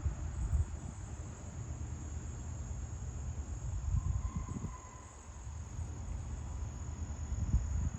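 Steady, high-pitched chorus of insects such as crickets, with a low rumble on the microphone underneath.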